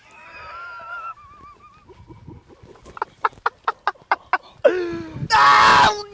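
A person making silly weird noises: wavering squeaky warbles, then a quick run of about eight clicks, then a falling squeal and a loud raspy squawk near the end.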